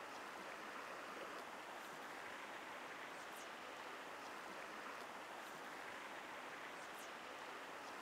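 Shallow mountain stream running over stones at low summer water, a steady, faint rush of water. A few faint high chirps come and go above it.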